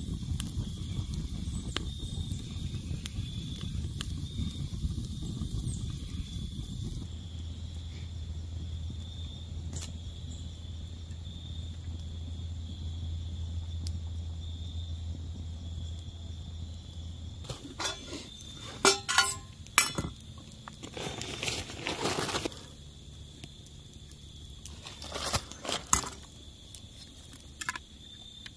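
Campfire burning with sparse crackles over a steady high insect trill. In the last ten seconds come several short bursts of clicks and knocks from camp gear being handled, a metal can and a steel cup among it.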